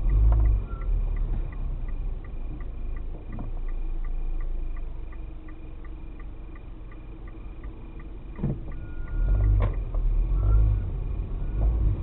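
Japanese railway level-crossing warning bell ringing in an even, repeating ding, about three strikes a second. Under it is the low rumble of the car, which swells near the start and again near the end.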